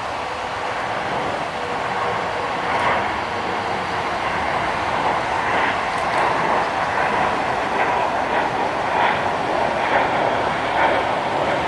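Jet airliner engines, a steady rushing that slowly grows louder, with irregular rough crackling pulses.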